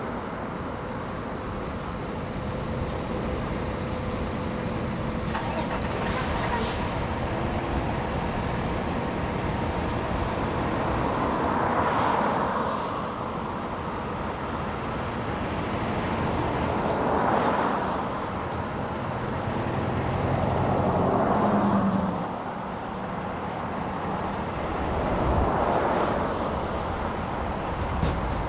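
Cars passing on the road, each rising and fading, four times, over the low steady running of a Pierce Enforcer fire engine's Cummins diesel as it pulls up to the open bay door.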